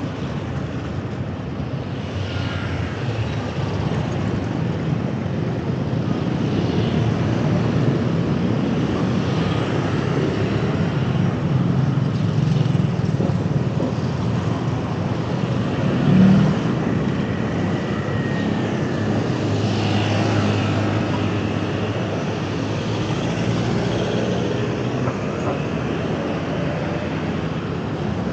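Steady city road traffic, vehicles passing with their engines running, with a brief louder vehicle sound about halfway through.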